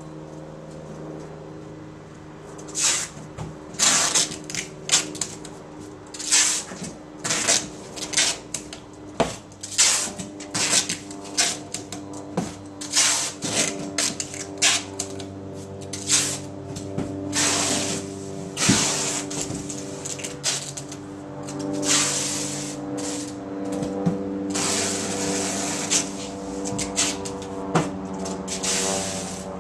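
Packing tape being pulled off the roll in repeated short screeching strips and pressed onto the seams of a large cardboard box, starting a couple of seconds in.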